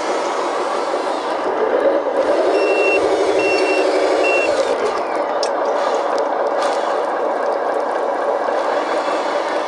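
1/14-scale hydraulic RC construction machine running, its electric motors and hydraulic pump whining steadily and growing louder for a few seconds. Three short, high reversing beeps sound about three seconds in.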